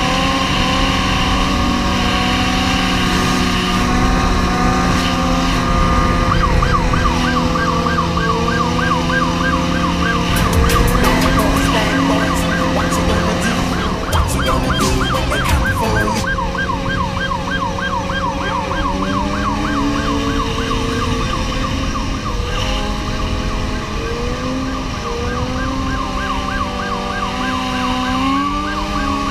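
Police car siren on a fast yelp cycle, running over the steady sound of motorcycle engines at speed. The engine pitch rises and falls in the last third.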